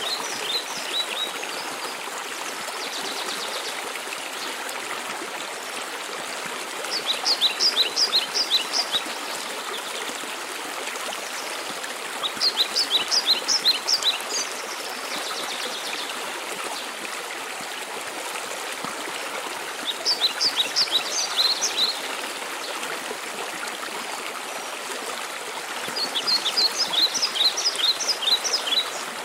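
Steady rush of waterfall water, with a songbird repeatedly singing a short, fast phrase of high, quick notes, heard five times at intervals of about six seconds. The birdsong phrases stand out above the water.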